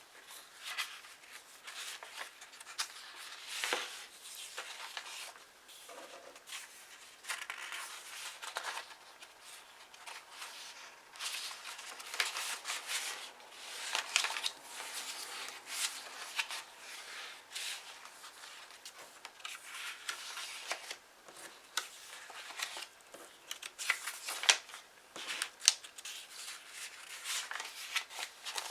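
Paper being handled: sheets and pages rustling and sliding, with many irregular crisp crackles and snips.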